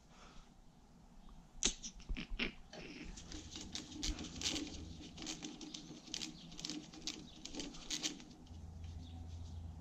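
Light, irregular clicking and rattling of hand tools on metal: a tool taken from a tool case, then a hand tool working on the go-kart's rear-axle fittings.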